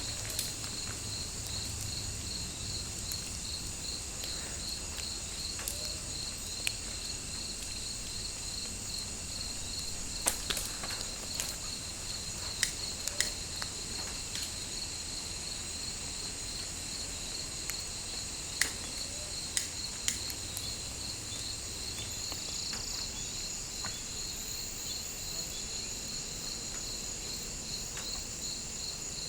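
Insects calling in tropical forest: a steady high-pitched buzz layered with an evenly pulsing chirp, continuous throughout. Scattered sharp clicks or snaps are heard now and then, most of them in the middle of the stretch.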